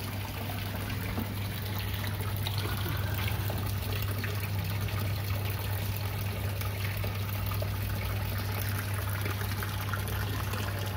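Water pouring from a PVC pipe into a pond, a steady splashing trickle onto the water surface, with a steady low hum underneath.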